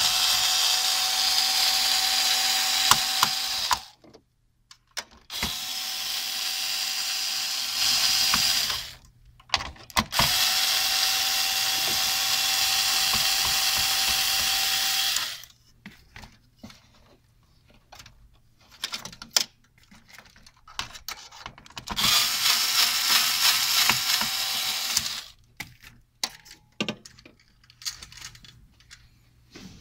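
Electric screwdriver backing out the spring-loaded screws that hold the CPU fan and heatsink: four runs of a steady motor whine, each a few seconds long, with short pauses between. In the last part there are only light clicks and handling knocks.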